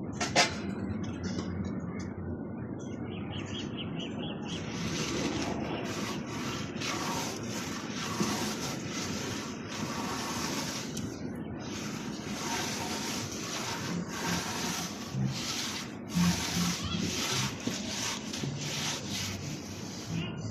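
A sharp knock about half a second in, then a hand tool working wood with quick repeated rasping strokes, in the manner of sawing or sanding.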